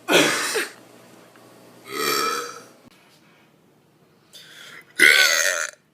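Three loud human belches, about two seconds apart, the last one the loudest.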